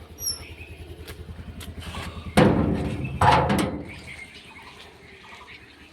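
A gate being closed: two loud ringing strokes, about two and a half and three and a half seconds in. A scooter engine idles underneath.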